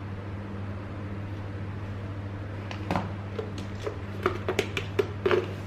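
Light clicks and taps of kitchen utensils while spices are spooned into a mixing bowl, coming about three or four a second in the second half, over a steady low hum.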